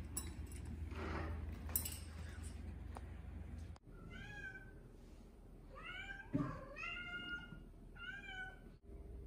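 A cat meowing four times, drawn-out calls bending in pitch, starting about four seconds in, with a short thump between the second and third meow.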